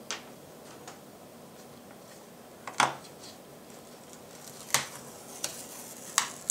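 A handful of short, light clicks and taps as a thin pry tool works against a laptop's bottom case, levering off its rubber foot strips. The clicks are scattered, with the sharpest about three seconds in and quiet between them.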